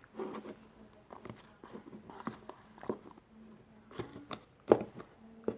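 Glue and shaving-foam slime being stirred in a bowl: irregular wet squelches and small clicks of the stirrer against the bowl, with a few sharper clacks later on.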